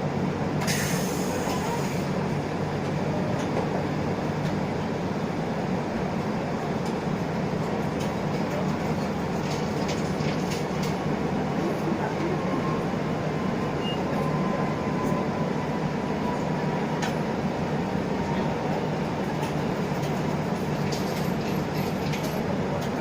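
Isuzu Erga LV290 city bus on the move, heard from inside the cabin: its four-cylinder diesel engine and road noise running steadily, with a faint whine through the middle and a few light clicks and rattles.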